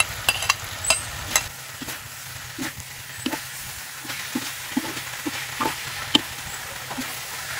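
Eel pieces sizzling in a metal wok while shredded ginger is scraped off a plate into it with a metal spatula, with a few sharp clicks. The spatula then scrapes and taps against the wok in even stir-frying strokes, about two a second.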